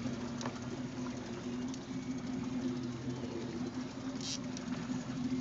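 A fishing boat's engine running steadily at trolling speed, a low even hum under wind and water noise, with a brief hiss about four seconds in.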